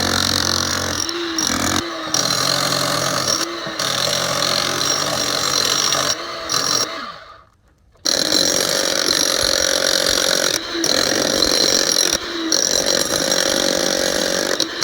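Hilti 70 rotary hammer chiselling out a crack in a pool wall. It runs in long stretches with a few brief let-offs, stops for about a second around the middle, then starts again.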